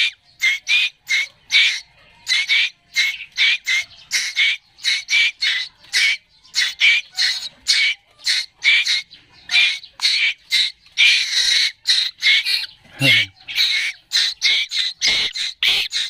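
Fledgling Asian koels begging for food with loud, harsh squawks, repeated steadily at about three calls a second.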